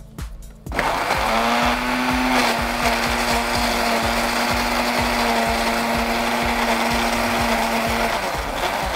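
Electric blender starting up about a second in and running steadily with a whine as it purées chopped mango pieces. A regular beat of background music sounds underneath.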